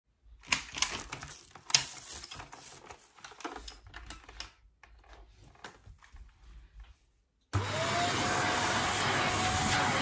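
Clicks and knocks of a vacuum cleaner's hose and handle being handled, then, about three quarters of the way through, the Shark vacuum cleaner's motor switches on suddenly, its whine rising quickly and settling into a steady running note.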